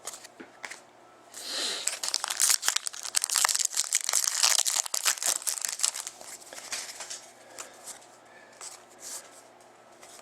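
Plastic wrapping on a trading card pack or box being torn open and crinkled for a few seconds, then a few light clicks of handling.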